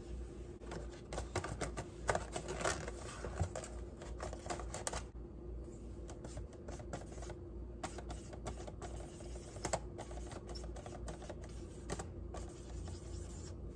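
Kitchen prep clatter: irregular light clicks and taps of utensils against dishes and containers, over a steady hum.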